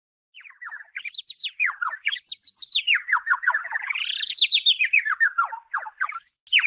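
Cartoon-style bird chirping sound effect: a fast twitter of tweets that sweeps up and down in pitch several times, with a short break about six seconds in.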